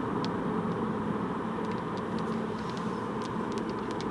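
Steady road and engine noise heard inside a moving car's cabin, with a few faint scattered ticks.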